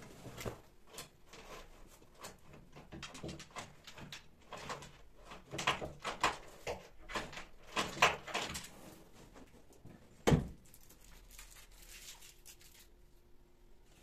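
Curtain fabric rustling as it is pulled down, dropped and gathered into a heap, with a run of light clicks and knocks and one heavy thump a little after ten seconds in.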